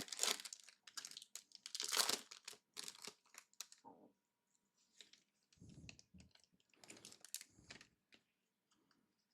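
Foil wrapper of a trading-card pack being torn open and crinkled, densest and loudest in the first four seconds, then only faint scattered rustles.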